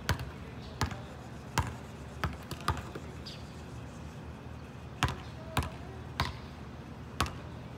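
Basketball dribbled on an asphalt court: sharp bounces roughly every two-thirds of a second, five of them, then a pause of about two seconds while the ball is held, then four more bounces.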